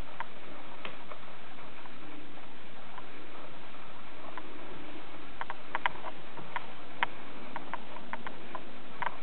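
Footsteps on a hard floor: light, irregular clicks and taps, sparse at first and bunched together about halfway through, over a steady background hiss.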